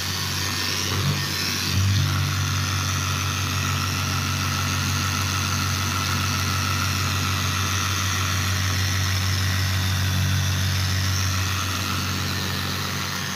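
Milwaukee angle grinder fitted with a polishing pad running steadily while wet-polishing a scratch out of a vanity top, the pad pressed against the wet surface. The sound gets a little louder about two seconds in, then holds steady.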